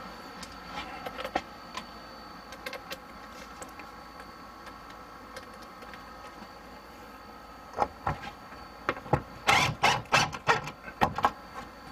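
Loud, irregular clattering knocks of hand-handled hardware and tools, bunched in the last few seconds after a few light clicks early on, over the steady hum of a portable air conditioner.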